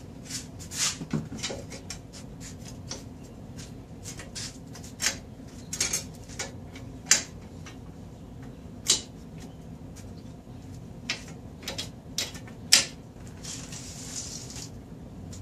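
Irregular sharp metallic clicks and clanks of tools and brake parts being handled at a car's front wheel hub, over a steady low hum. A brief rustling hiss comes near the end.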